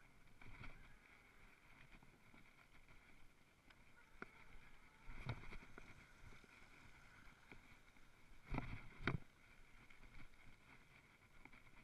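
Electric mountain bike riding over a rough forest trail: a faint steady whine under knocks and rattles as the bike hits bumps, the loudest two about nine seconds in.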